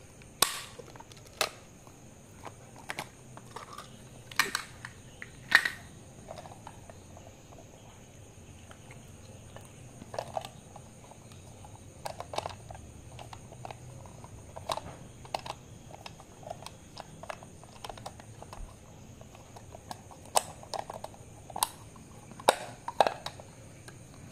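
Hard plastic parts being handled and fitted together: a clear plastic action-camera waterproof housing and a side-mount camera bracket, giving irregular clicks, taps and knocks with quieter handling rustle between.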